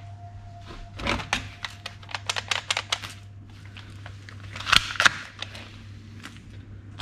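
Hard plastic toy guns clattering and knocking together as they are rummaged through and lifted out of a box: a run of quick clicks and taps, with a louder clack about five seconds in.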